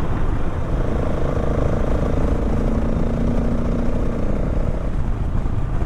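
Motorcycle engine running at a steady cruising speed, its drone holding one pitch for several seconds before easing off near the end, under heavy rumbling wind and road noise on the microphone.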